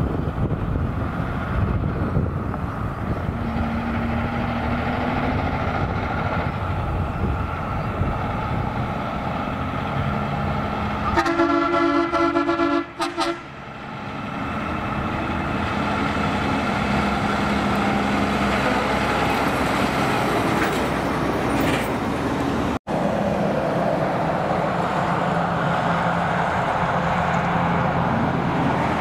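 Heavy trucks' diesel engines and tyres running as they drive past. About eleven seconds in, a truck air horn sounds for about two seconds. Near the end, after a brief break, a loaded log truck passes on a highway with steady engine and tyre noise.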